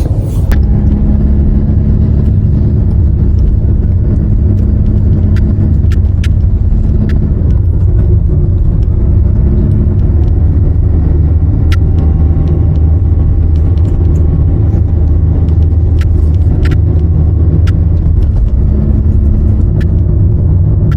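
Steady low road rumble inside the cabin of a moving Toyota Noah (80 series) minivan, with faint short clicks now and then.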